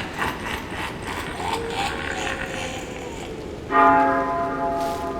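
Rhythmic mechanical clicking fades away. About three and a half seconds in, a large bell is struck once and rings on with several steady tones.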